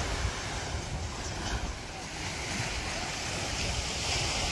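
Small waves breaking and washing up a sandy beach in a steady surf wash that swells slightly near the end, with wind rumbling on the microphone.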